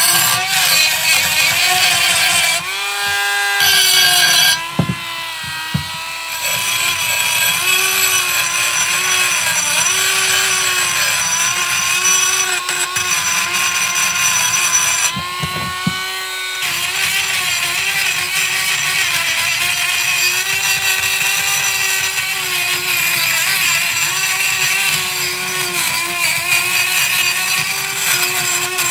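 Dremel-type rotary tool grinding rust off the pad seats of a rusty brake caliper bracket: a steady high motor whine over a gritty scraping that dips and recovers as the bit bears on the metal. Twice, about three seconds in and again near the middle, the bit comes off the metal briefly and spins free at a slightly higher pitch.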